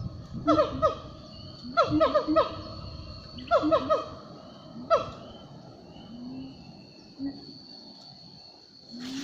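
A wild animal calling: clusters of quick falling notes repeated about every second and a half, then a few single, lower drawn-out notes near the end. A steady high-pitched whine runs underneath.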